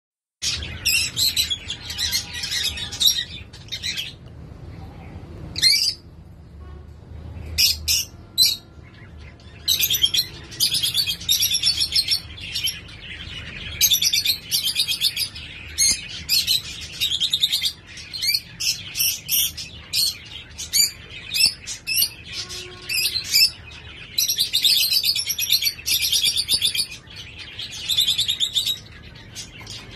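Caged finches chirping and twittering in quick, high-pitched phrases a second or two long, with short gaps between them.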